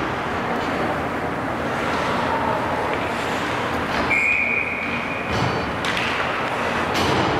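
Ice hockey rink noise: a steady wash of sound from play on the ice and the arena, with a single short high whistle tone about four seconds in and a couple of sharp knocks near the end.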